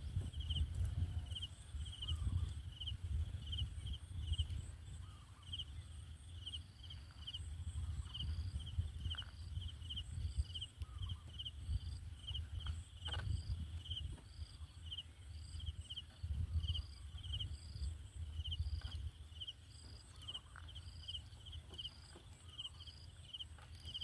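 Low, uneven rumbling and bumping with a few sharp clicks, from a zebra dove feeding its two chicks bill-to-bill in a twig nest. A high chirp repeats steadily about twice a second behind it, joined by a second, higher chirp about a third of the way in.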